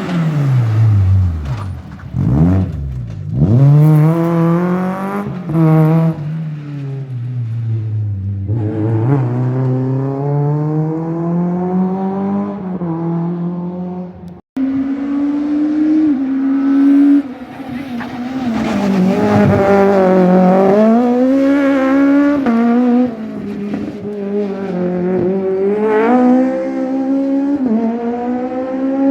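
Rally cars racing past at full speed, engines revving hard and then dropping in pitch through gear changes and braking. About halfway through, the sound cuts abruptly to another car at high revs.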